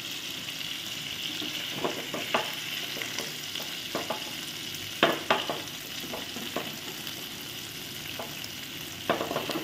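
Masala-coated chicken pieces sizzling steadily as they shallow-fry in oil in a nonstick pan, with scattered clicks and scrapes of a spatula against the pan and plate as the fried pieces are lifted out one by one.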